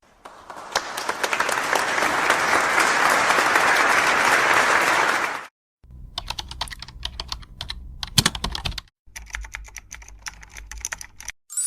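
Computer keyboard typing sound effects. A dense clatter of keystrokes runs for about five seconds, then stops. After a short break come two shorter runs of separate key clicks.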